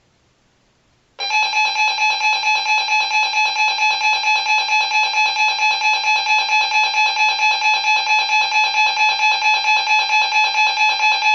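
Weather radio's electronic alert alarm: a steady chord of fixed pitches pulsing about four times a second. It starts about a second in and runs for about ten seconds before cutting off.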